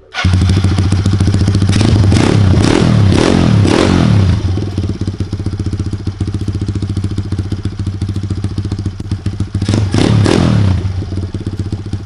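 Kawasaki KLX110 pit bike's single-cylinder four-stroke engine running, given a quick series of throttle blips in the first few seconds and two more near the end, idling steadily in between. It idles evenly now that its badly out-of-spec valves have been adjusted.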